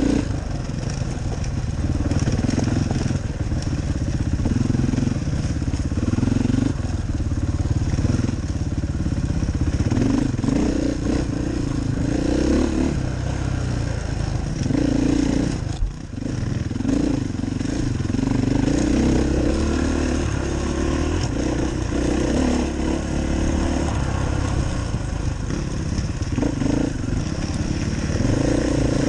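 KTM EXC enduro dirt bike engine under way on a trail, its note rising and falling as the throttle is opened and closed, with one brief drop about halfway through. Heard from a helmet camera, with wind and trail noise mixed in.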